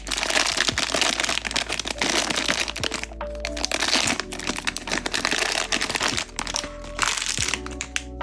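Crinkly plastic or foil blind-box packaging being handled and torn open, a dense crackling that stops briefly twice and ends about seven and a half seconds in, over background music.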